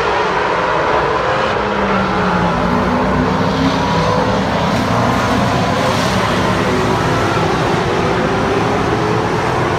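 A field of stock cars racing on a short oval track, many engines together making a loud, steady drone, with separate engine notes rising and falling as cars pass by.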